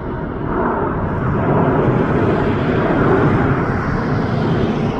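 Jet airliner passing close on its landing approach: a loud, steady engine rush that swells over the first three seconds and begins to fade near the end.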